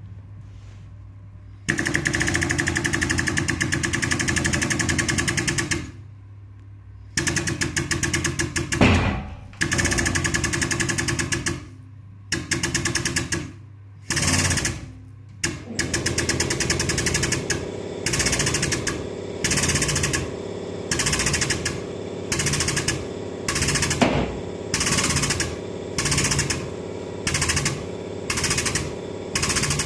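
A hand-held power tool hammering rapidly, in long bursts at first and then in short bursts about once a second.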